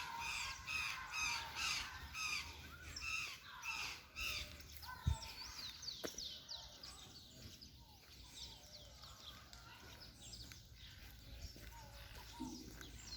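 Birds calling: a run of harsh, repeated calls, about three a second, for the first four seconds. Then from about five seconds on comes a series of thin, high whistled notes, each falling in pitch. A single low bump sounds about five seconds in.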